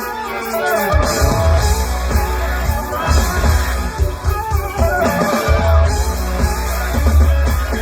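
Live rock band playing a song, with guitar over heavy pulsing bass.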